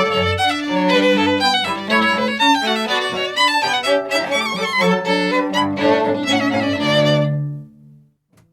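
A baroque string orchestra playing live, with violins over cello. The piece closes on a held final chord about seven seconds in, which fades away.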